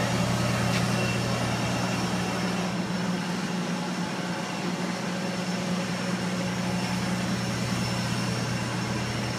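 Steady low mechanical hum over an even hiss, unchanging throughout.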